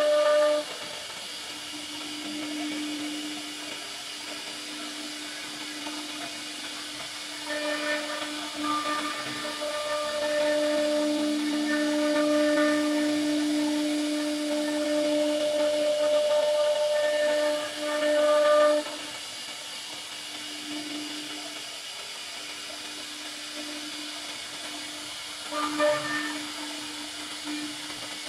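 CNC router spindle running with a large profile bit cutting moulding grooves into a wooden panel: a steady high whine over the hiss of the cut. It grows louder and fuller from about a quarter of the way in until about two-thirds through, and swells briefly again near the end.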